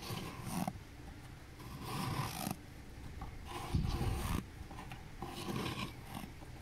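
Fingers scraping and crunching through thick, powdery freezer frost in four separate strokes about a second and a half apart.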